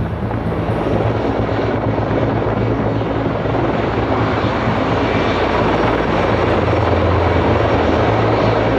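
CH-53E Super Stallion heavy helicopter running, its three turbine engines and rotors making a loud, steady rush with a low hum underneath.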